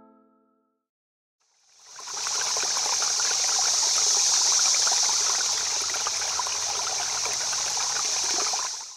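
Running stream water, a steady rushing and babbling that fades in after a moment of silence and fades out near the end.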